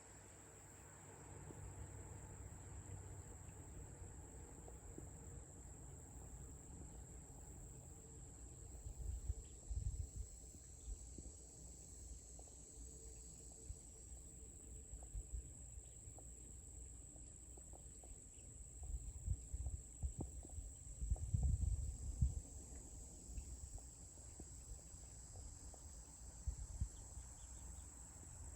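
Insects chirring in a steady, high-pitched chorus. Low rumbles and soft knocks come and go beneath it, loudest about two-thirds of the way through.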